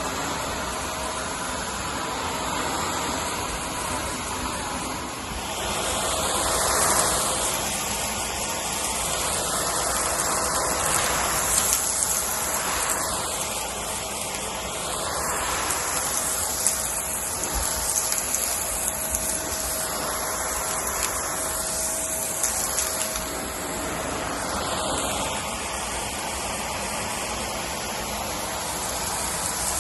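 Vacuum cleaner running over a rug, a steady rushing sound with a faint motor whine, swelling and dipping every few seconds as it is pushed back and forth.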